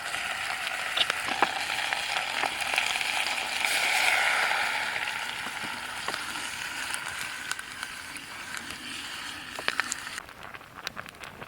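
Food sizzling in a pan over a campfire: a steady hiss that swells about four seconds in, then fades, with scattered pops and crackles. The hiss drops away near the end, leaving the crackles.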